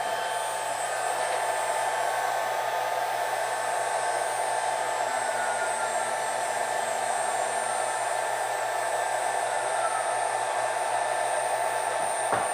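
Shark HD4 CNC router's 2 horsepower water-cooled spindle spinning at high speed on its variable frequency drive: a steady whine with an airy hiss.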